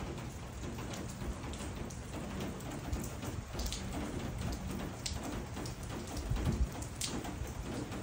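Steady rain falling, with scattered louder drops striking close by. A brief low rumble comes about six and a half seconds in.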